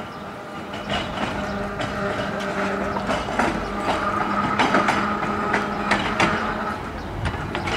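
Seaton Tramway's open-top double-deck electric tram No. 8 running slowly past over the track, its wheels clicking irregularly over rail joints and points under a steady whine. It grows louder as it draws near.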